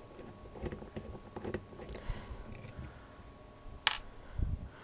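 Light scattered clicks and taps of a screwdriver and small metal parts being handled while screws are taken out of a hard drive's mounting, with one sharper click about four seconds in.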